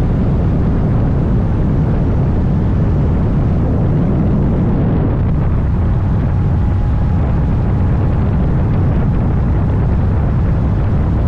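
Steady wind rush on the microphone from riding a Honda Gold Wing motorcycle at speed, with the motorcycle's running drone underneath.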